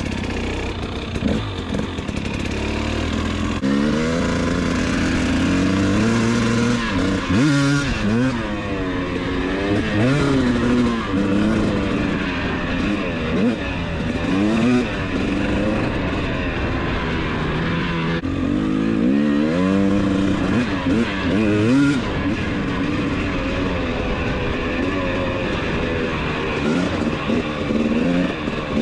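Husqvarna TC250 single-cylinder two-stroke dirt bike being ridden, its engine revs climbing and dropping again and again.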